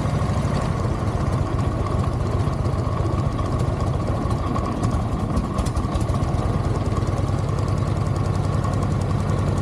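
1984 Harley-Davidson Tour Glide's early 80 cubic inch Evolution V-twin idling steadily in neutral on a little choke, freshly started.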